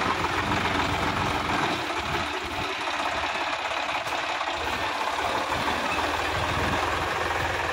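Sonalika DI-50 RX tractor's diesel engine running steadily with a low, even clatter as the tractor drives through a flooded, muddy paddy field, with water and mud churning under the wheels.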